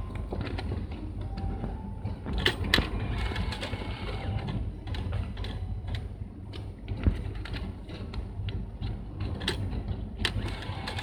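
Banknote slot of a reserved-seat ticket vending machine drawing in and checking banknotes, with mechanical whirring and a series of clicks over a steady low rumble.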